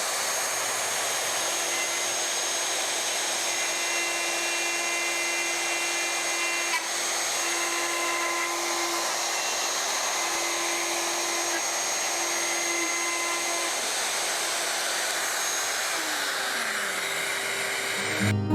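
Handheld router with a guide bushing and 1/4-inch spiral bit running steadily while roughing out openings in an oak workpiece, its pitch shifting now and then under the load of the cut. Near the end it winds down, falling in pitch.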